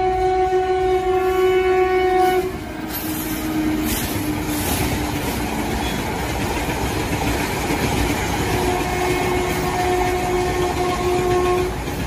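A train passing with its wheels rumbling and clattering on the rails. The horn sounds one steady note that cuts off about two and a half seconds in. It sounds again for about three seconds near the end.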